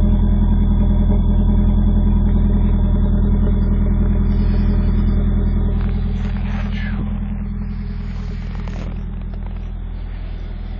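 Vehicle engine running steadily at idle after a hard cold start at eight below zero. Its sound eases off a little about halfway through.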